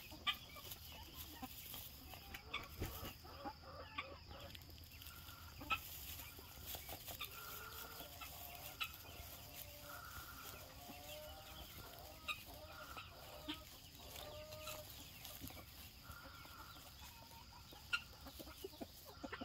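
Faint, soft clucking calls from poultry, repeated in short runs through the middle of the stretch, with a few sharp clicks and rustles of straw.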